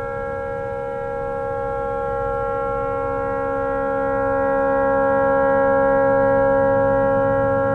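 Tugboat horn stuck on, sounding one unbroken steady blast: a malfunctioning horn that will not shut off. It grows a little louder after the middle and then eases slightly.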